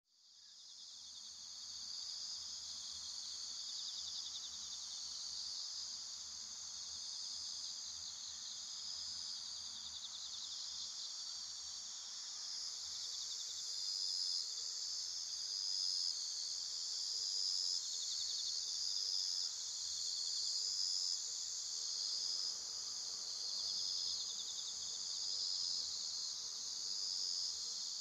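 Night chorus of autumn insects: a dense, steady, high trilling that fades in at the start, with one insect's repeated chirps standing out about every second and a half from about halfway through.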